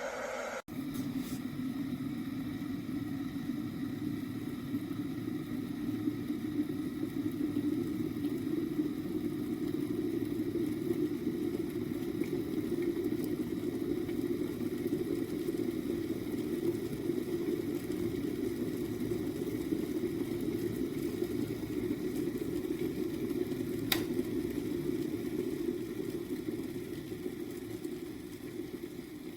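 Aigostar Adam 30GOM glass electric kettle heating water: a steady rushing boil that starts just under a second in, with one sharp click about two-thirds of the way through.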